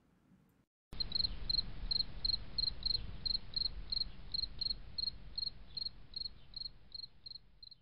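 Insect chirping like a cricket: short high chirps repeating evenly about three times a second over a low rumble. It starts about a second in and grows fainter toward the end.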